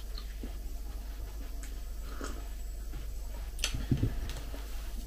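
Small sipping and swallowing sounds from a ceramic mug of chicory drink, then, a bit past halfway, a sharp click and a low knock as the mug comes down toward the table.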